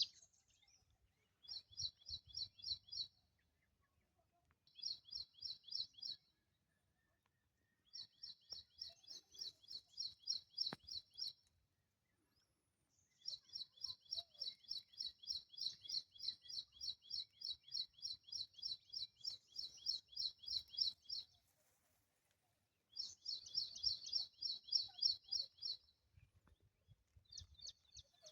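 A bird calling in repeated bouts of rapid high chirps, about six or seven a second. The bouts last from one to eight seconds, with short pauses between them.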